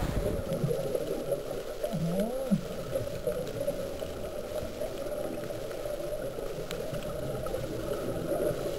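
Underwater ambience picked up by a diver's camera: a steady, muffled rushing of water. About two seconds in there is a brief wavering tone.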